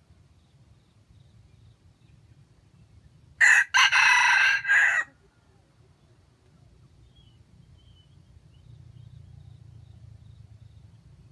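A red junglefowl rooster crows once, loudly, in a short, clipped crow of under two seconds. The crow is broken into three parts: a brief opening note, a longer middle and a short end.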